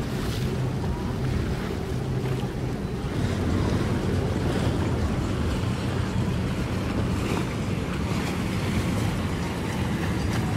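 Steady low rumble of an idling boat engine, with wind buffeting the microphone and water sloshing.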